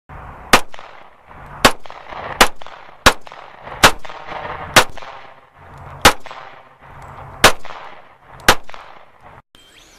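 Nine single gunshots, irregularly spaced about a second apart, each followed by a short echo.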